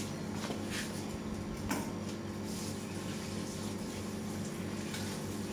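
Water running from a garden tap into a small sink, over a steady low hum, with a few faint knocks in the first two seconds.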